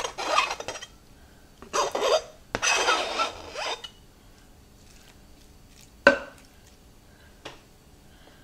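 A flat scraper blade rasps several times across a thin plastic cutting board, pushing diced raw chicken into a slow cooker's crock. About six seconds in there is one sharp clack as the blade knocks against the rim of the crock, then a small click.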